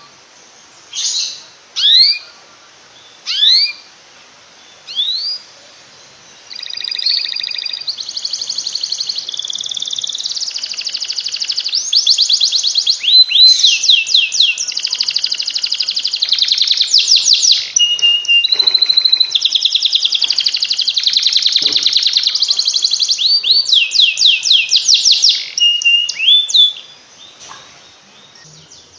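Canary singing: first a few single rising chirps about a second apart, then a long unbroken song of fast trills and rolling phrases lasting some twenty seconds, breaking off into a couple of short notes near the end.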